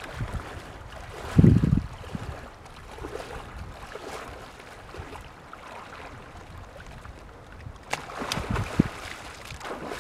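Wind gusting on the microphone, with a steady rushing noise between the gusts and a single sharp click about eight seconds in.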